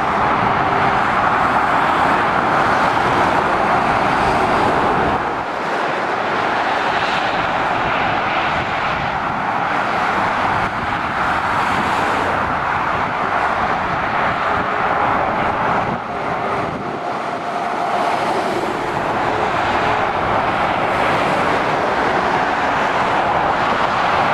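Steady motorway traffic: tyre roar and engine drone of cars and lorries passing below, easing briefly about five seconds in and again about sixteen seconds in.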